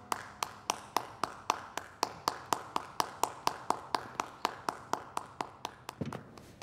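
One person clapping slowly and steadily, about four claps a second, quickening a little. The claps stop about six seconds in, followed by a dull thump.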